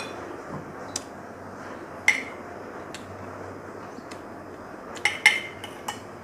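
Metal spoon clinking against a glass serving bowl while scooping braised fish: a series of light taps about once a second, with two louder, briefly ringing clinks about five seconds in.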